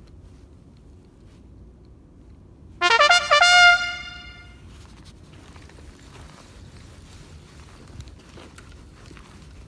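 A loud brassy, horn-like blast about three seconds in, in two short back-to-back parts, sliding up in pitch at its start and ringing away over about a second.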